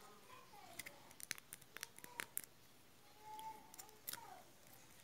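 Faint, sharp plastic clicks and taps from a small plastic doll and its silicone pop-it fidget rings being handled in the fingers, in two clusters: one about a second in, another near four seconds in.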